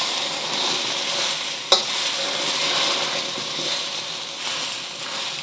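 Eggs sizzling in hot oil in a stainless steel wok as a metal wok spatula stirs and pushes them, with one sharp clink of spatula on wok a little under two seconds in. The eggs are nearly set.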